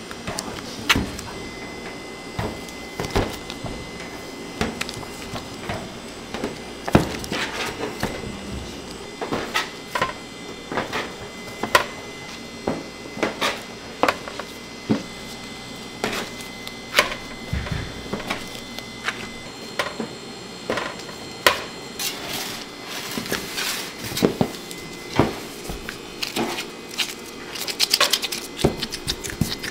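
Irregular knocks and clatters of hands and tools working at a bakery bench, some of them wooden, over a faint steady hum. The knocks come thicker near the end.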